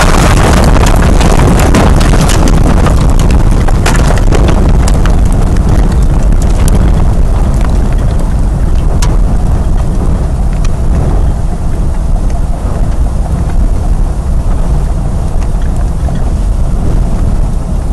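Tornado winds blasting the microphone, a loud rushing wind with debris clattering and striking. The knocks are thickest in the first half, and the wind eases a little after about ten seconds.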